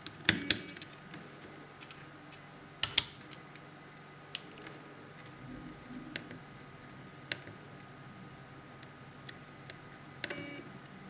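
Plastic switches and buttons clicking on a Canon Speedlite 430EX III-RT flash and a Yongnuo YN-E3-RT radio transmitter: two pairs of sharp clicks in the first three seconds as the units are switched on, then a few single, softer button clicks. Near the end comes a brief pitched chirp.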